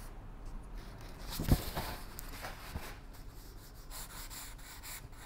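Pencil scratching and rubbing on a paper sketchpad in short, faint, irregular strokes.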